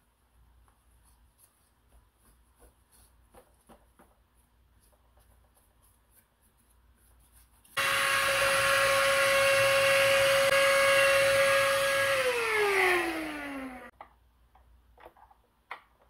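Faint rubbing and handling clicks, then a handheld vacuum cleaner switches on suddenly and runs at a steady high whine for about four and a half seconds before it is switched off and winds down with a falling pitch.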